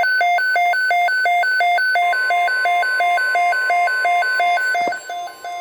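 A weather radio's electronic alert alarm: two buzzy tones alternating high and low about three times a second. About two seconds in, a steady tone near 1 kHz joins it, the NOAA Weather Radio warning tone that comes before a watch or warning. Both cut off abruptly near the end.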